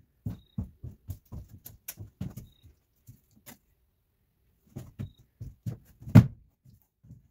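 Footsteps and light knocks on a wood subfloor as a person walks in and crouches, with a louder thump about six seconds in.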